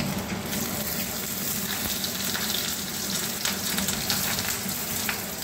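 Pumpkin-leaf-wrapped fish parcels sizzling steadily in hot oil in a kadai as they are laid in and pressed down. The hiss brightens about half a second in, with scattered crackles.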